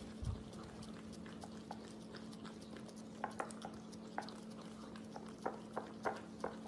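Golden retriever puppy licking whipped cream from the top of a jar: a series of short wet licks and smacks, most of them in the second half, over a faint steady hum.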